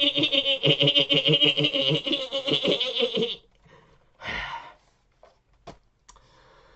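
A man's voice imitating machine-gun fire: a rapid stuttering rattle of mouth-made shots that stops abruptly about three and a half seconds in, followed by a sharp breath.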